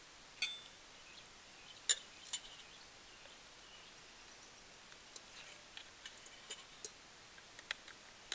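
Sharp metal clinks of a cooking pot and utensils, three clear ones in the first two and a half seconds, then a run of lighter ticks and clicks. This is the raw chicken being put into the boiling gravy.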